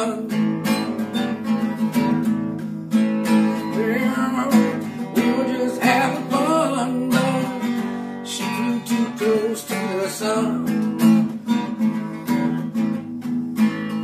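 Acoustic guitar strummed steadily in an instrumental passage of a song, with a wavering melody line gliding in pitch over it around the middle.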